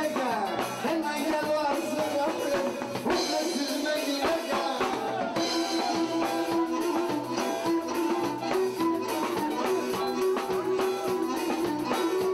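Live Pontic Greek band music: a Pontic lyra plays the melody over keyboards, bass guitar and a drum kit with a steady beat.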